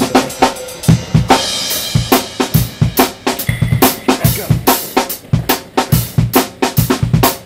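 Background music with a fast, steady drum-kit beat: kick, snare and cymbals.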